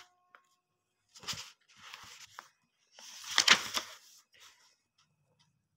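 Paper rustling in a few short bursts, as book pages are handled and turned; the longest and loudest comes about three seconds in.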